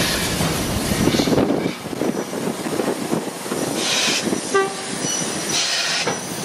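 A 1948 Robert Stephenson & Hawthorns 0-4-0 saddle tank steam locomotive passes slowly, followed by its short wooden open wagons, which rattle and clank on the rails through a curve. A brief squeal comes about four and a half seconds in.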